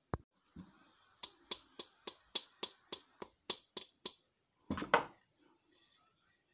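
Small hammer tapping rapidly and evenly on the end of a wooden handle seated in an axe head's eye, about eleven quick strikes, setting the handle in the head. A single louder double knock follows near the end.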